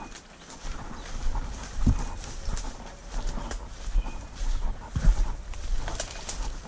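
Footsteps through dry leaves and brush, with branches swishing and twigs snapping against the walker. Two heavier footfalls stand out, about two seconds in and about five seconds in.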